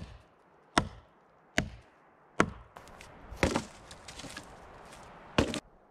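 Dry dead branches being chopped with a hatchet for firewood: about six sharp chops a little under a second apart, the last two longer, with a cracking, splintering sound.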